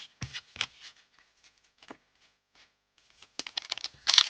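Trading cards and a foil booster-pack wrapper being handled: a few light taps and clicks, then crinkling of the foil wrapper building up in the last second or so.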